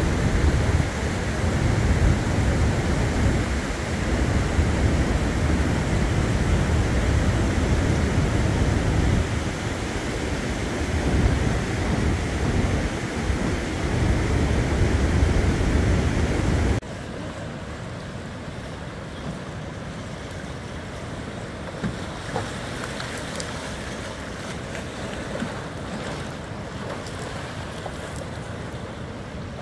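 The Neckar in flood: fast, high water rushing and churning, with wind buffeting the microphone. About halfway through, the sound drops suddenly to a quieter, steady rush of water.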